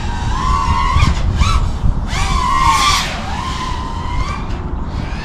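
FPV quadcopter's motors and propellers whining in flight, the pitch rising and falling with the throttle. A loud full-throttle surge comes about two seconds in and lasts about a second.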